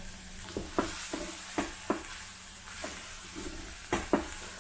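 Chopped cabbage frying with a steady sizzle in a hot pot of oil, onion and garlic-chilli paste as it is scraped in off a plate and stirred, with about eight sharp knocks of the spatula scattered through.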